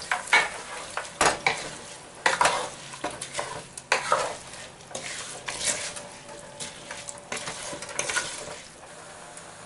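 A spoon stirring soaked basmati rice and vegetables in a pot over the heat, scraping and knocking against the pot at irregular moments over a light sizzle. The stirring dies down near the end.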